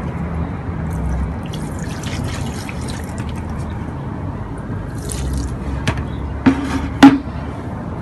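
Water pouring from a plastic watering can, trickling and dripping onto potting soil in planter boxes. A few sharp knocks fall near the end, the loudest about seven seconds in.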